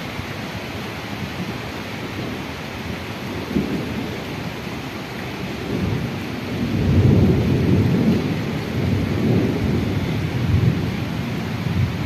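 Steady rain hiss. About six seconds in, a low rumble of thunder swells, peaks and keeps rolling.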